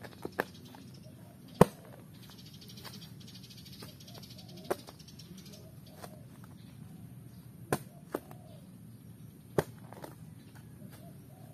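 Steel spade blade striking and chopping into soil and a tree root, about seven sharp thuds at uneven intervals, the loudest about a second and a half in. The blade is cutting through a tree root in the planting hole.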